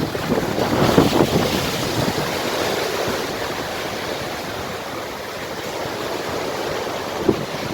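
Rough sea surf in a strong onshore wind: waves breaking and washing in over a steady rushing noise, with wind gusts buffeting the microphone, the strongest about a second in.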